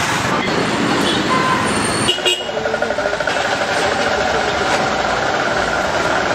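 Street traffic noise: vehicle engines running, with horn toots. The background changes abruptly about two seconds in.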